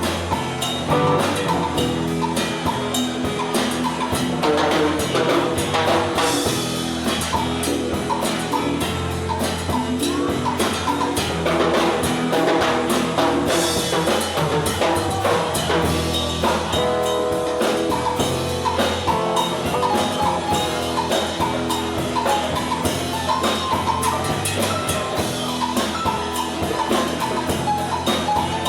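Live band music with a drum kit keeping a steady beat under melodic instruments.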